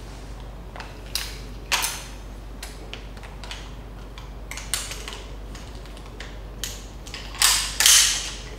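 Metal rope-access hardware being handled and clipped on: scattered clicks of a descender, backup device and carabiners being fitted onto the rope, with a louder rattle about a second before the end.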